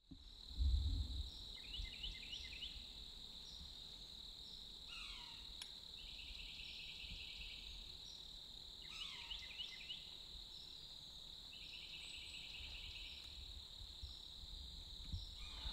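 Steady high chirring of crickets in the woods. A bird sings a repeated phrase of quick falling notes and a short trill every few seconds, and there is a brief low rumble near the start.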